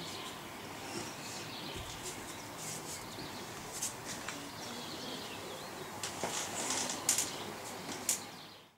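Birds chirping over quiet outdoor ambience, with soft rustles and a few light knocks in the last few seconds as a person is helped down into a padded chair.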